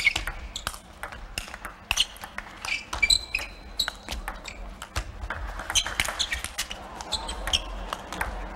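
Table tennis rally: the ball clicking sharply off the bats and the table in quick, uneven succession, with brief squeaks of the players' shoes on the court floor, echoing in a large hall.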